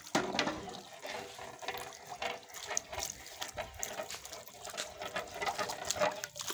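Spiced chickpea broth in a large aluminium degh being stirred with a long metal ladle: liquid sloshing and splashing, with frequent short knocks and scrapes of the ladle against the pot.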